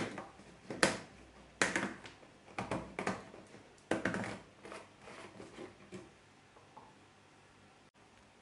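Hands twisting the screw cap of a large plastic canister and gripping its body: a string of sharp plastic crackles and clicks, loudest in the first half, that die away about six seconds in.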